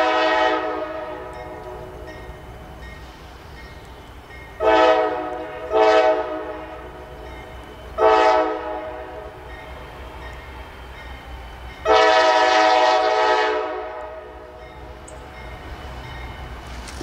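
Norfolk Southern diesel locomotive's air horn sounding a multi-note chord in five blasts as the train approaches: one at the start, two short ones about five and six seconds in, another near eight seconds, and a longer one about twelve seconds in, each echoing away.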